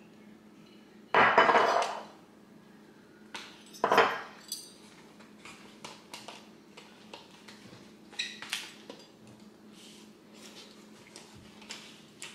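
Knives and forks clinking and scraping on dinner plates as two people cut their food, with two louder clatters in the first few seconds.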